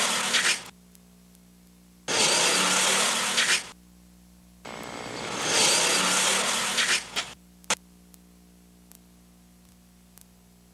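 Buick LeSabre's engine running hard at full throttle, loud and harsh, in three separate bursts that cut in and out abruptly; the third swells up as the car approaches. A short click follows, then quiet.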